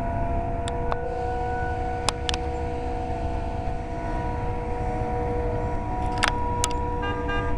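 Roof-mounted 3T22 outdoor warning siren sounding a steady chord of several pitches, held without rising or falling, over a low rumble, with a few sharp clicks.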